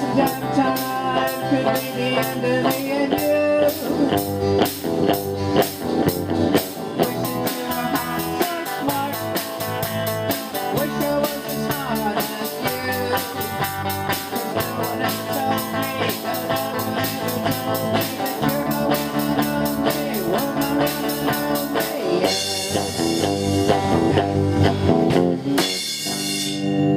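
Live light rock band (electric guitars, bass and drum kit) playing a run-through with a steady drum beat. About 22 seconds in the beat stops and a final chord rings out with a cymbal wash, dying away near the end.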